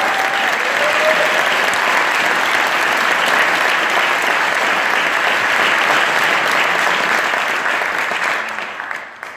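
Audience applauding steadily, the clapping dying away about eight seconds in.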